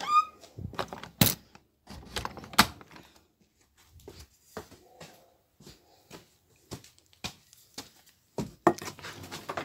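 A short rising squeak at the start, then a run of scattered knocks, thuds and footsteps on wooden boards as equipment is picked up and carried about in a small room, with a hiss starting near the end.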